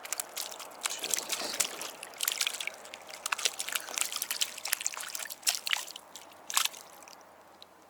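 Water splashing and sloshing in quick irregular bursts, dying down about seven seconds in.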